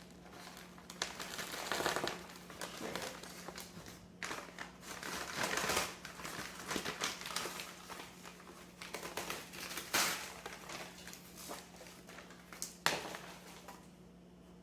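Crinkling and rustling of packaging being handled and unwrapped from a potted orchid, in irregular bursts with a few sharp clicks, the loudest about ten seconds in and near the end.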